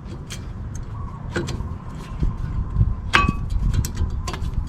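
Light metallic clicks and clinks of new front brake pads being fitted into the caliper bracket's clips. One brighter, briefly ringing clink comes about three seconds in, over a low steady rumble.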